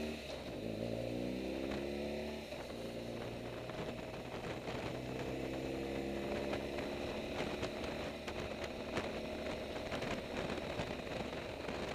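Motorcycle engine accelerating up the gears: its note rises, drops at a gear change about two and a half seconds in, then rises again. In the second half wind buffeting on the microphone grows, with crackling.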